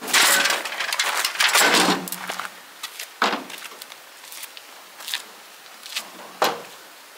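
A loud scraping, clattering rush lasting about two seconds, then a string of five or so separate knocks and clunks, like wood or stone being handled.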